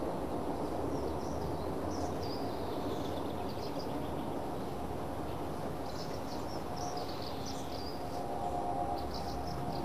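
Steady low rushing background noise, with small birds chirping now and then.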